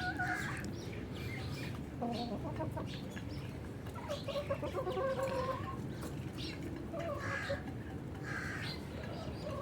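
Aseel chickens clucking, a string of short, quiet calls scattered over several seconds.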